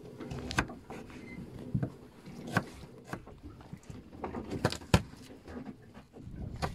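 Kitchen knife cutting onion and garlic on a wooden cutting board, the blade knocking the board in sharp, irregularly spaced knocks, the loudest about five seconds in.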